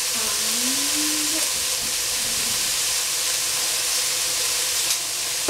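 Shredded cabbage and pepper strips sizzling in a steel pot over the heat, a steady frying hiss. Near the start, a short low tone lasting about a second rises slightly and then dips.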